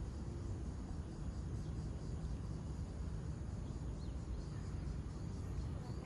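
Steady low outdoor background rumble with a few faint high chirps.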